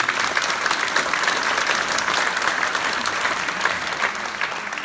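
Audience applauding: many hands clapping at once in a steady, dense clatter.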